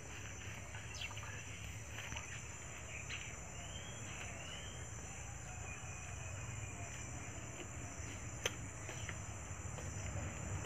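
Quiet rural outdoor ambience: a steady high-pitched insect drone with a few faint bird chirps, a low rumble underneath and a single sharp click about eight seconds in.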